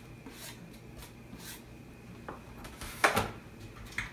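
A cutting board set down with a sharp knock on the kitchen counter about three seconds in, with a few lighter clicks and handling sounds around it.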